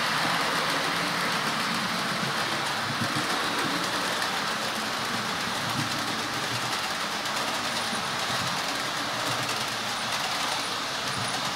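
Model railway trains running on the layout's track: a steady rolling rumble.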